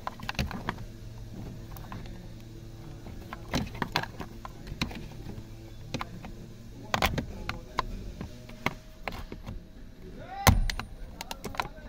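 Thin screwdriver clicking and scraping against the plastic clips inside the back of a steering wheel while prying at the driver's airbag locking clip, which is not releasing. The clicks and knocks are scattered, with the sharpest knock about ten seconds in, over a steady low hum.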